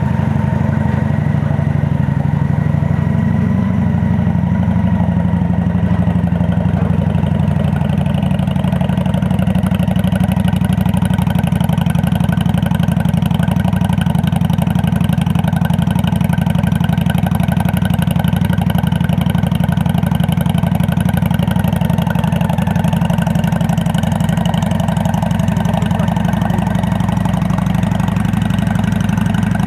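Honda Black Widow 750c's V-twin idling steadily through an aftermarket Cobra exhaust with chrome slash-cut dual pipes.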